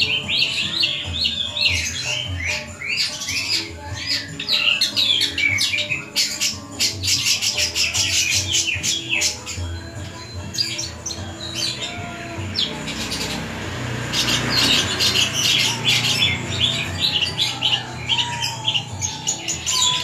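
Caged long-tailed shrike (cendet) singing a fast, varied stream of high chirps, trills and harsh squawks. This is the mixed, mimicking song the bird is kept for. A brief rustling hiss comes about two-thirds of the way through.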